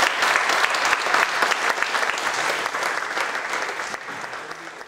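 Audience applauding at the end of a lecture: many hands clapping together, dense and loud, thinning somewhat near the end.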